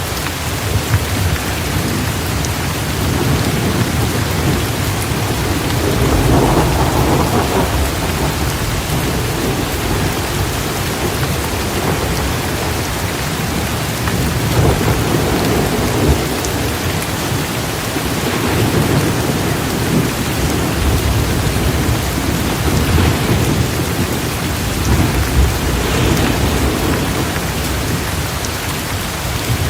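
Heavy rain pouring down steadily, with low rumbles that swell and fade several times.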